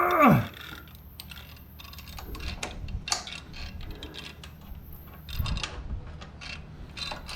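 A short strained groan with falling pitch at the very start, then scattered clicks and clinks of hand tools on metal as a stubborn fastener is worked on the motorcycle.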